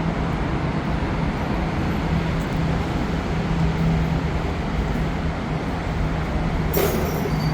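Steady vehicle or road noise with a constant low hum. A short sharp clatter comes near the end.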